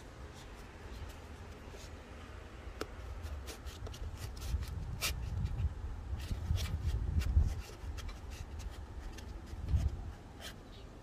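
A black slit insert being pushed and worked by hand into the end of a square steel tube: rubbing and scraping with many small sharp clicks, the loudest about five seconds in, over low bumps of handling noise.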